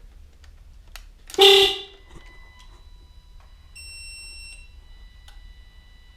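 A 2005 VW Beetle's electrical system waking up as power is switched on: a short, loud horn-like chirp about a second and a half in, then steady electronic warning tones with a higher beep about four seconds in, and a few clicks.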